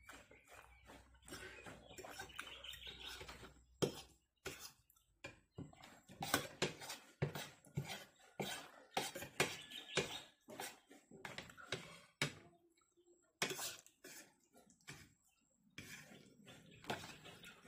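Spaghetti being eaten close to the microphone: noodles slurped and chewed, with a fork and spoon clicking and scraping many times against a ceramic plate.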